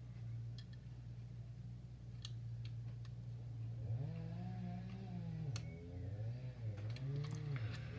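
Light clicks of steel tweezers on small plastic model parts as delicate canopy rails are dry-fitted, then from about four seconds in a low voice humming wordless notes that rise and fall in pitch.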